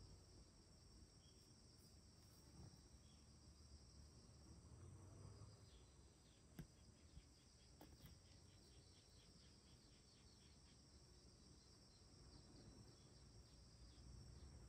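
Faint, steady, high-pitched chorus of crickets, with a short run of quick chirps near the middle and a single soft click.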